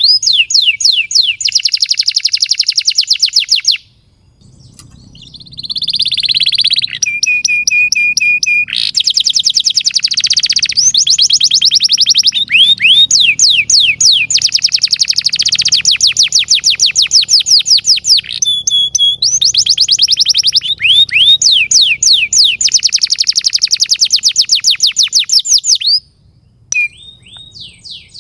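Domestic canary singing a long song of rapid rolls and trills, fast repeated sweeping notes with a short held whistle among them. There is a brief pause about four seconds in and another near the end.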